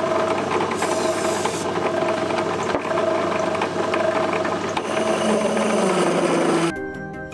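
A large twist drill cutting into a 7075-T6 aluminium bar turning in a metal lathe: a steady drilling and spindle noise with a held tone and a brief hiss of chips about a second in. Just before the end it cuts off sharply and music starts.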